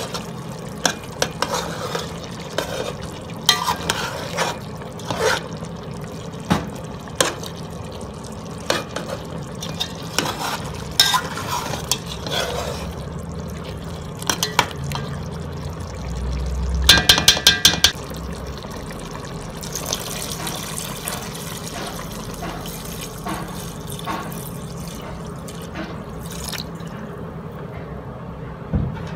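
Metal spoon stirring chicken pieces and tomato paste in a pot, knocking and scraping against its sides. A little past the middle comes a quick run of clicks with a low rumble, followed by water being poured into the pot for several seconds.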